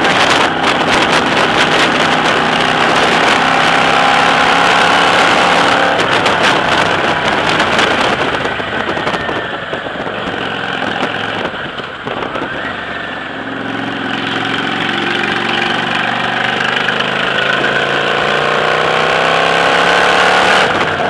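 Motorcycle engine running on the move, with wind buffeting the microphone. It eases off midway, then pulls harder, its pitch rising near the end.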